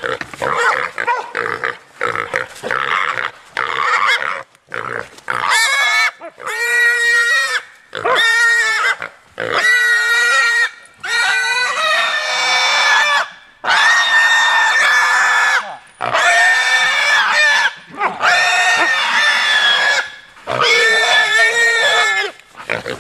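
Hog squealing in distress while held by catch dogs and pinned down. The first few seconds are rougher and broken up, then come about nine loud, drawn-out squeals of one to two seconds each, one after another with short breaths between.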